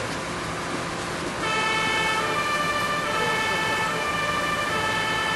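Two-tone emergency-vehicle siren that starts about a second and a half in, switching between a high and a low note a little under once a second.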